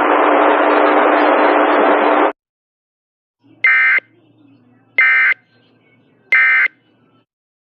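A steady rush of radio static that cuts off abruptly about two seconds in. After a pause come three short, identical data-tone bursts a little over a second apart: the Emergency Alert System end-of-message code, which signals that the alert broadcast is over.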